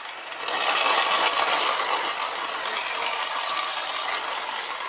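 Grinding, rattling noise from a Ford BA XR8's BTR four-speed automatic transmission with the engine running, swelling about half a second in and easing off near the end. The noise is in the transmission, not the diff, and is suspected to come from a failed planetary gear set.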